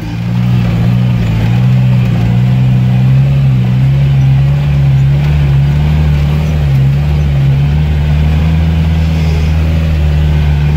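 V8 engine of a modified UAZ off-roader running at a steady, low pace, heard from inside the cab. Its pitch wavers a little over the first few seconds, then holds steady.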